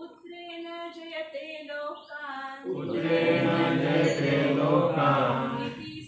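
Sanskrit verse chanted call-and-response: a single voice chants a phrase, then about two and a half seconds in a group of voices repeats it together in unison.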